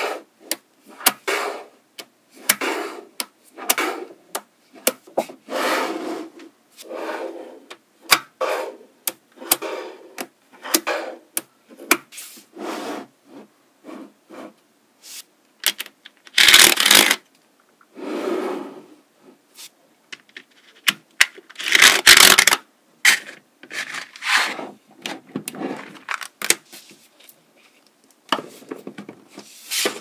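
Small magnetic balls being pressed, rubbed and scraped by hand into a packed layer: a string of short rasping rubs and clicks with silent gaps between them. Two longer, louder scrapes come about halfway and about two-thirds of the way through, where a flat card is pushed across the ball layer.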